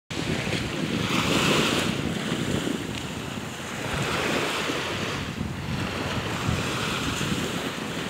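Small sea waves breaking and washing up onto a sandy shore, the hiss of the surf swelling about every three seconds. Wind buffets the microphone with a low rumble underneath.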